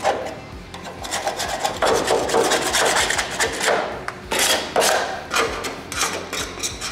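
A hand paint scraper drawn over the steel lower door pillar of a Ford XC Falcon panel van, lifting paint softened by chemical paint stripper, in a quick series of short scraping strokes starting about a second in.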